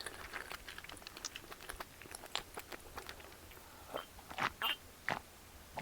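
A person chewing food close to the microphone: irregular small wet mouth clicks and crunches, with a few louder bites about four to five seconds in.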